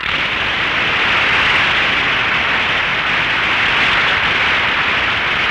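Studio audience applause that breaks out suddenly and holds at a steady, dense level of many hands clapping.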